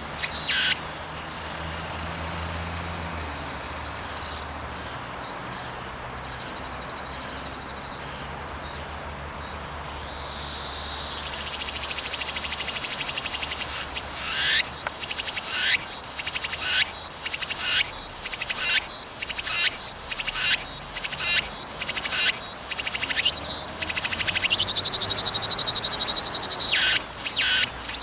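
Cicadas singing. A steady high buzz over the first few seconds fades to a softer drone. From about halfway a cicada's pulsing song sets in, repeated phrases about one a second, swelling into a long held note near the end.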